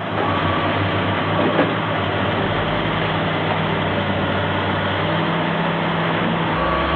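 Heavy diesel engine of a large dump truck running steadily, a dense, even mechanical din with a low engine hum.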